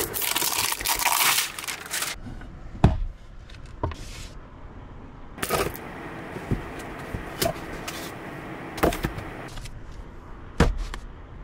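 Rustling, crackling handling noise for about two seconds as a roll of tape is picked up, then a series of separate knocks and thuds as books and other items are lifted and set down on a counter.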